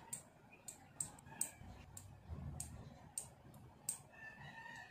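Faint, sharp clicks about every half second as a small metal tool scrapes and picks at a plastic dummy-battery coupler, boring a hole in it by hand. A rooster crows faintly near the end.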